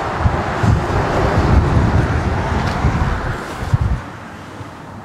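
A car driving at speed, a loud rush of road and wind noise with irregular low rumbling, cutting off abruptly about four seconds in.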